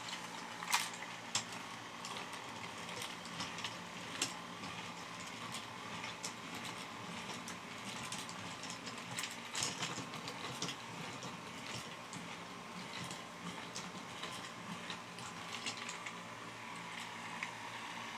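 Small 3D-printed walking robot running: a steady mechanical whir of its motors and gears, with irregular light clicks and taps from its plastic parts and feet as it walks.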